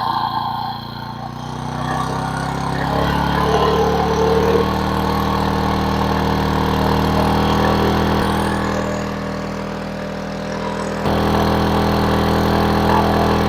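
AIVOLT 1600 W inverter generator's 60 cc four-stroke overhead-valve engine running hard under a near-full electrical load of about 1,200 W. About eleven seconds in, its note changes abruptly and gets louder.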